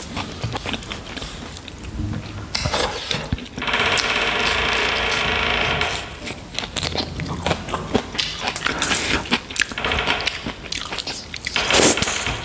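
Fingers scraping leftover rice and gravy across aluminium foil, including a steady rasping scrape of about two seconds that starts about four seconds in, mixed with the wet mouth sounds of eating by hand.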